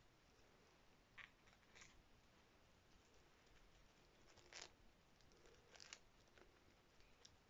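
Near silence: faint room tone with a handful of brief, soft rustles and clicks as felt Christmas ornaments are taken out and handled.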